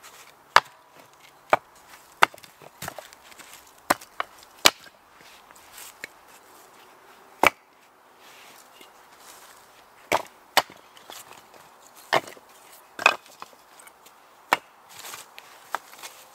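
A small axe splitting kindling on a log chopping block: a series of sharp wooden chops and cracks. Later, split pieces of wood knock together as they are stacked.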